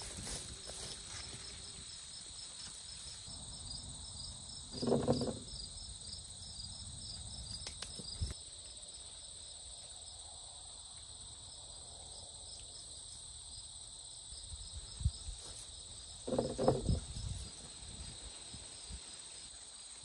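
Insects, likely crickets, chirping steadily in an even pulse, a few chirps a second, with soft low rustling. Two brief louder pitched sounds come about five seconds in and again near the end.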